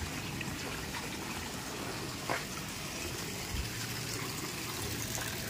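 Water gushing steadily from a pipe into a small concrete tank, splashing onto the water inside; the flow is running high after rain.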